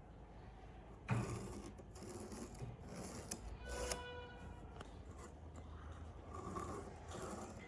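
Hand tool scraping and rubbing on wood in uneven strokes, starting abruptly about a second in, with a brief squeak near the middle.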